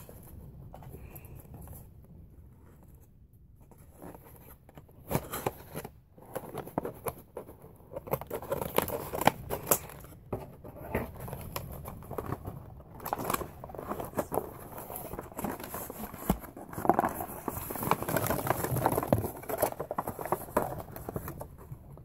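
Cardboard and plastic packaging being handled and pulled apart by hand: rustling, crinkling and small clicks, sparse at first and much busier after about five seconds.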